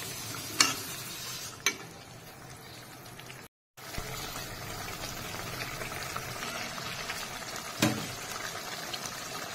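Small-fish curry gravy bubbling at a simmer in a metal kadai, a steady hiss. A spatula clicks against the pan a few times: about half a second in, near two seconds and near eight seconds. A brief gap of silence falls partway through.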